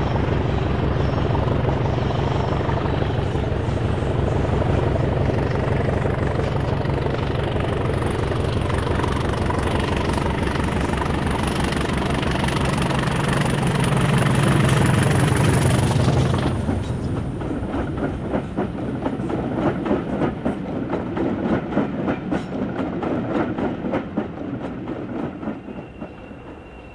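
Class 20 diesel locomotive's English Electric eight-cylinder engine working hard under power as it approaches and passes. About sixteen seconds in, the engine note drops away, leaving the coaches' wheels clattering rhythmically over the rail joints, fading as the train goes by.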